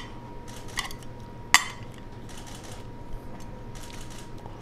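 Stainless steel tongs clinking against a metal ring mold and ceramic plate while slaw is packed in: a few sharp metallic clicks, the loudest about a second and a half in.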